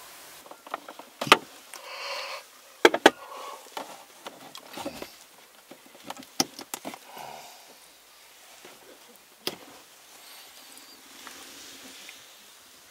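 Someone shifting about inside a car, bedding and fabric rustling, with several sharp clicks and taps, two of them in quick succession about three seconds in.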